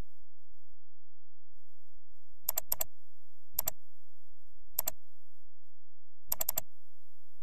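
Scattered clicks of a computer keyboard and mouse: a pair about two and a half seconds in, single clicks near three and a half and five seconds, and a quick run of about four near the end.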